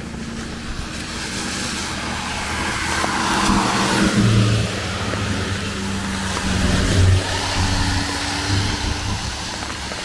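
A motor vehicle passing close by, its engine hum and road noise swelling to a peak about four seconds in and again around seven seconds, with rain in the background.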